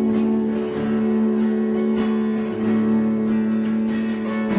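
Two steel-string acoustic guitars playing a song, fingerpicked and strummed, with a long held note over them that changes just before the end.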